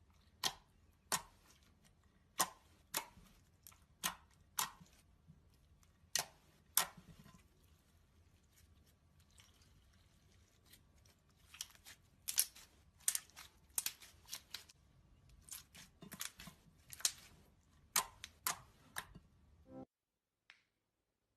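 Glitter slime being pressed and stretched by hand, giving off a string of sharp pops and clicks as air pockets burst. The pops are sparse at first and come faster after about eleven seconds, then stop abruptly near the end.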